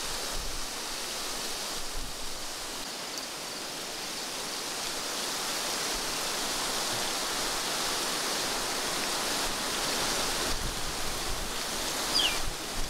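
Steady outdoor ambience: an even rushing hiss, with one brief high chirp near the end.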